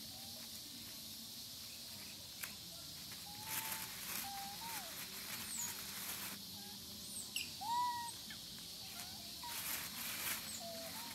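Outdoor forest ambience: scattered short whistled animal calls, some sliding up or down in pitch, the loudest about eight seconds in, over a steady high hiss, with a couple of brief rustling noises.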